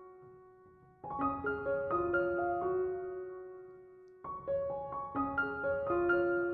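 Background piano music: gentle melodic phrases of struck notes that ring and fade, with a short lull before a new phrase starts about a second in and again a little past four seconds.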